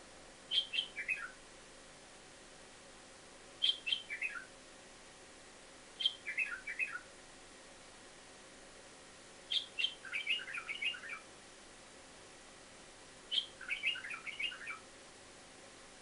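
White-eared bulbul calling: five short chirping phrases a few seconds apart, each opening with a sharp high note and stepping down in pitch.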